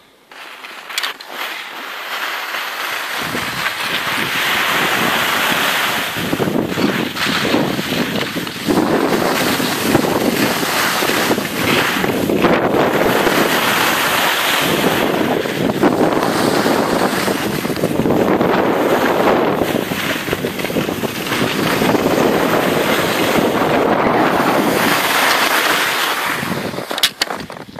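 Wind rushing over the camera microphone with skis scraping over snow during a downhill ski run. The noise builds over the first few seconds as speed picks up, then swells and eases every few seconds, and drops away near the end with a few clicks.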